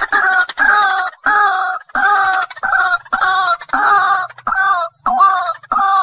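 White-breasted waterhen giving its repeated 'ruak ruak' call, about two calls a second, each about half a second long.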